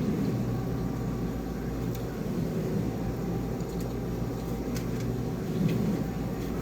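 Steady mechanical hum and wash noise of a dishwasher running, with a few faint light clicks.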